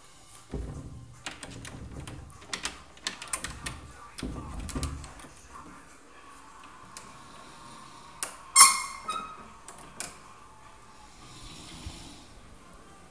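A person snoring: two low snores about four seconds apart, with scattered clicks and knocks around them and a sharp, loud crack about two-thirds of the way in.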